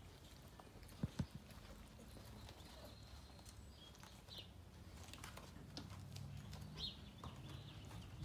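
Sheepadoodle puppies playing and scuffling: light patter and tapping of paws and claws, two sharp knocks about a second in, and a few faint short high squeaks, over a faint low hum.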